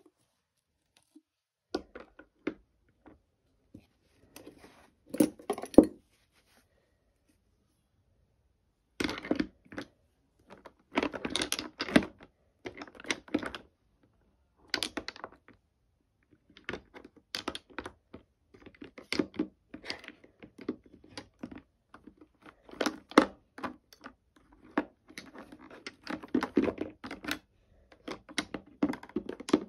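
Glass nail polish bottles clicking and knocking as they are picked up and set down by hand in plastic caddies inside a drawer. The clicks come in irregular clusters, with a pause of about three seconds around six seconds in.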